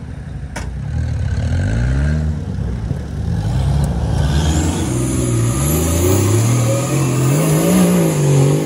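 Off-road 4x4 engine revving hard over rough ground, its pitch rising and falling again and again as the throttle is worked. There is a sharp click about half a second in.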